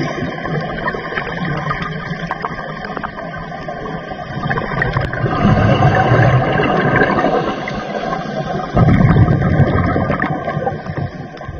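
Underwater ambience: a dense rushing, gurgling wash of water that swells louder about five and a half seconds in, and again suddenly near nine seconds.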